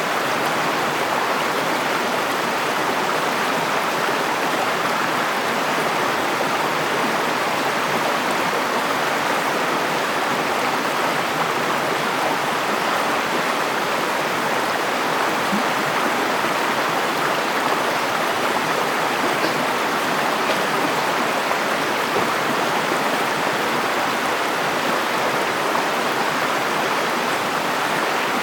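River water flowing over stones, a steady rushing.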